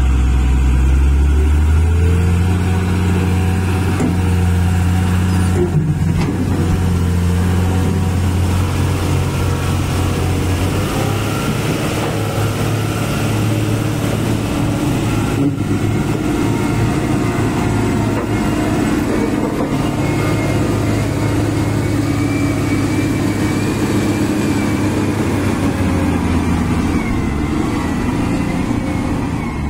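Heavy diesel engines of a Tata tipper truck and a wheel loader running hard under load as the loader pushes the stuck truck through soft sand. The engine note holds steady, then shifts in pitch about ten seconds in.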